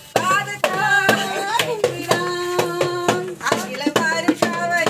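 A festive song with singing voices holding notes over a steady clapped beat.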